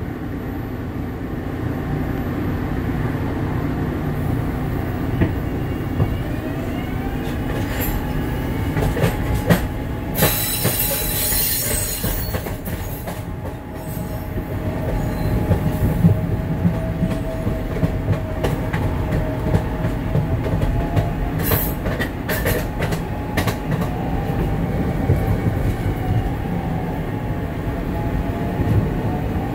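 Inside a 1999–2000 Adtranz M-4 subway-elevated car in motion: a steady low rumble of wheels on rail, with a thin motor whine that rises about six seconds in and shifts pitch later. About ten seconds in, a loud high-pitched wheel screech lasts two seconds, and a few sharp clicks from rail joints come through.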